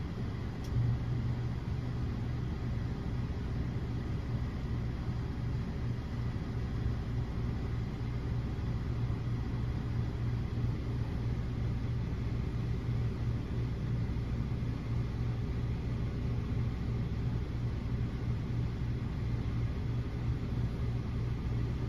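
A steady low hum, with a faint constant high whine above it and one small click about a second in; no thunder is heard.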